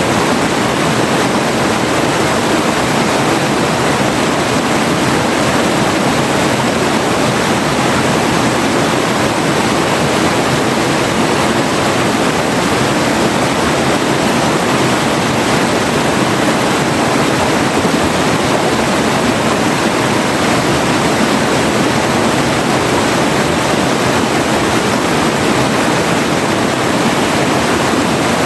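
River water rushing and splashing over rocks, a steady, unbroken rush with no distinct events.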